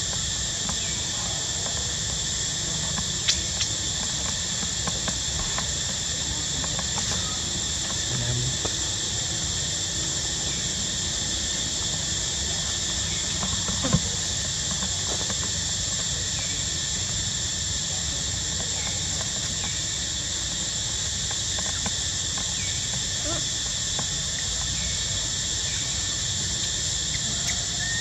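Insects droning steadily at a high pitch, with a few faint ticks and one sharper click about halfway through.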